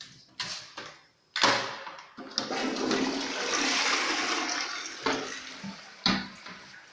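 Toilet flushing: a couple of short clicks, then a sudden rush of water about a second and a half in that runs for a few seconds and tapers off, a new installation being test-flushed.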